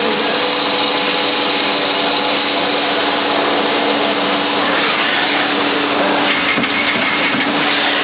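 CNC lathe running steadily, its spindle hum carrying a few steady tones under an even hiss of the tool cutting a taper on a carbon part. A brief higher tone joins in about six seconds in.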